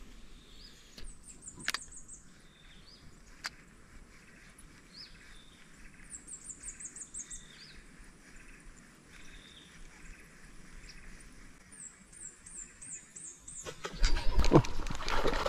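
Birds singing, with three runs of rapid, very high chirps and some lower calls. Near the end comes a sudden loud splashing commotion as a snakehead strikes at the surface lure.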